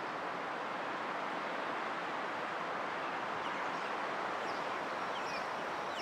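Steady outdoor rushing noise, like wind through trees, with a few faint high chirps in the second half.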